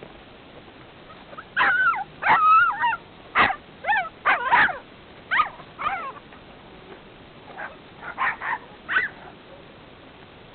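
A series of about a dozen short, high animal calls with bending pitch, coming in quick clusters from about a second and a half in to about nine seconds, over a low steady hiss.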